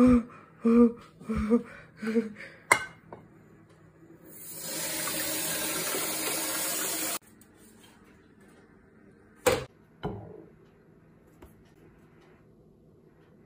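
Tap water running onto a hot frying pan in a stainless-steel sink: a loud, steady hiss that builds about four seconds in and cuts off suddenly about three seconds later. Before it come a few short knocks and squeaks as the pan is handled in the sink, and two sharp knocks follow about ten seconds in.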